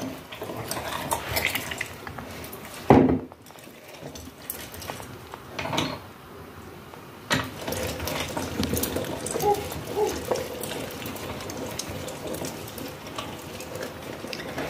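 Hand-cranked metal meat grinder being turned, its screw forcing chopped tripe and meat through the cutting plate: irregular scraping, creaking and clicking, with a sharp knock about three seconds in.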